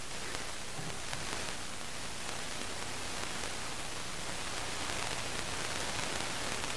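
Steady, even hiss of recording noise over faint hall room tone, with no speech or music.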